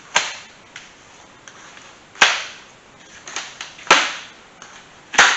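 Plastic packing straps on a cardboard shipping box being cut one after another, each letting go with a sharp snap: four snaps, roughly one every one and a half to two seconds, with faint clicks between.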